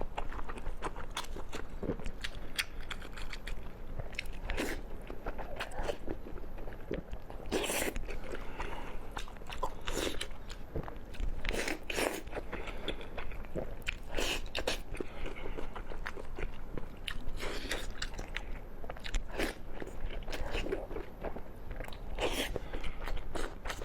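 Close-miked eating: a person biting and chewing crunchy food, with sharp crunches at irregular intervals.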